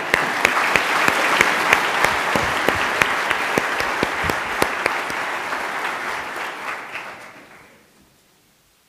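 Congregation applauding, with many hands clapping at once; the applause dies away about eight seconds in.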